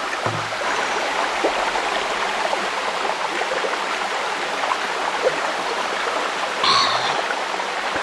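Mountain stream and spring water running steadily over rocks, a constant rushing, with a short louder noise about seven seconds in.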